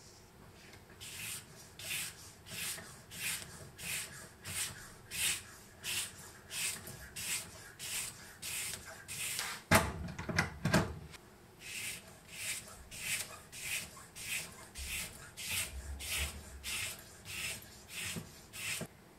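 Fine polishing stone on a guided sharpening jig being drawn over a steel knife edge in steady strokes, about three every two seconds. About ten seconds in, a few louder knocks break the rhythm before the strokes start again.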